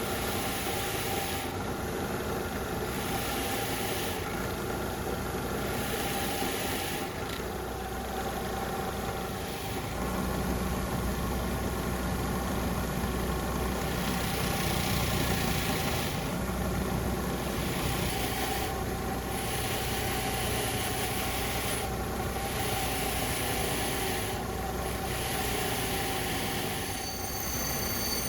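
An electric power tool running steadily against metal, its sound swelling and easing about every two seconds as the work is pressed to it and drawn back. Near the end there is a brief high-pitched squeal.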